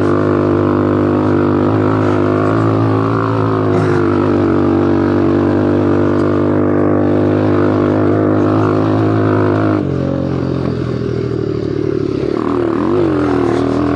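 HUMMER 125cc quad bike's engine running at steady revs, then easing off about ten seconds in, its pitch dropping and wavering.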